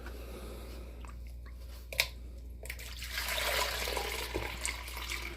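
Water being poured out of a large glass snow globe, a steady gushing pour starting about three seconds in. A single sharp knock comes just before it.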